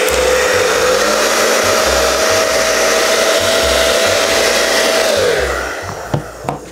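Hairdryer running and blowing hot air onto an aluminium plate glued over a cracked phone screen, to soften the screen's adhesive: a loud steady rush of air with a motor whine that steps up in pitch about a second in, then slides down and fades as it is switched off near the end.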